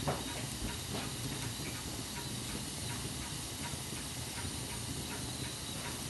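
Wood fire burning in an open fireplace: a steady hiss with scattered crackles and small pops, and a sharper pop right at the start and another about a second in.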